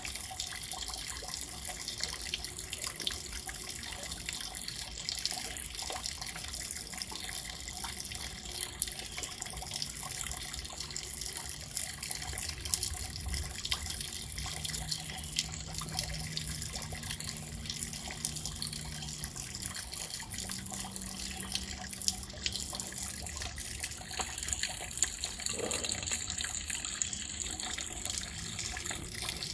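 Steady rain falling, with many individual drops ticking close by. A faint low hum comes in partway through.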